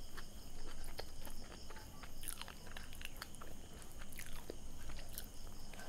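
Close-miked chewing of a mouthful of pav bhaji, with many small irregular wet mouth clicks and smacks.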